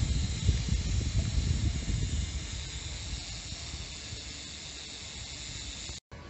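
Wind rumbling on the microphone of a camera riding along on a bicycle, over a steady high hiss. The rumble eases after two or three seconds, and the sound cuts off abruptly near the end.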